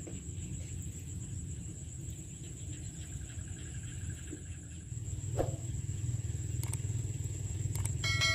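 Steady low outdoor rumble that grows louder about five seconds in, under a constant thin high whine. Near the end a bright ringing chime sounds once, the sound effect of a subscribe-button animation.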